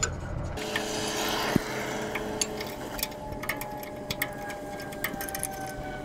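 Irregular light metallic clicks and clinks of a wrench working loose the adjustment bolt heads on a sawmill guide arm, thickest in the second half, over a faint steady hum.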